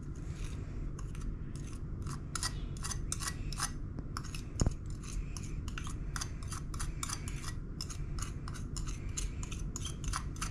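A spoon scraping and tapping against a small glass bowl as turmeric powder is knocked out of it: a quick, irregular run of light clicks, about three or four a second, with one louder knock about halfway through.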